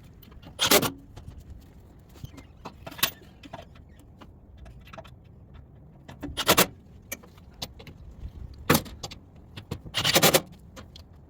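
Cordless drill driving security bolts in five short bursts, each under half a second, with the drill's clutch set low as a guess at the torque. Small metallic clicks and clinks come between the bursts.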